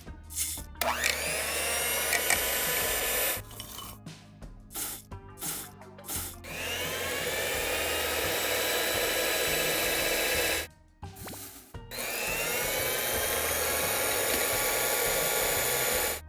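Electric hand mixer whirring in three runs of a few seconds each, speeding up at the start of each run, as when whipping meringue.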